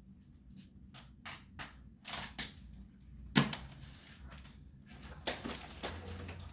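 A paper sign being handled and pulled off a wall: rustling paper with a string of light taps and clicks, and one sharp knock a little past the middle.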